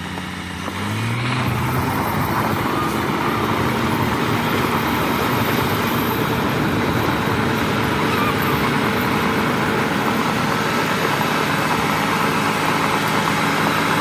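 Heavy dump truck's diesel engine revving up about a second in, then running hard and steady under load.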